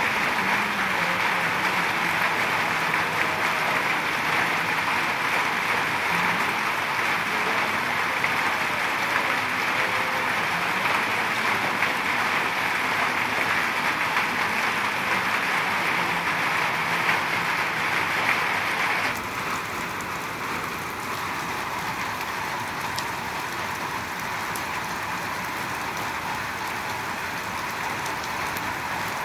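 Steady rain falling, with water pouring in streams off the edge of a tarp. It turns a little softer about two-thirds of the way through.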